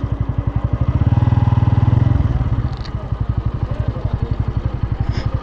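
Bajaj Pulsar N160's single-cylinder engine idling with steady, even firing pulses, about a dozen a second. A louder low hum swells for about a second near the start.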